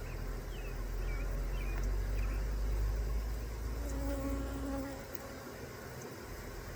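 Honeybees from a swarm buzzing over a low rumble, with one bee passing close and buzzing loudly for about a second, about four seconds in.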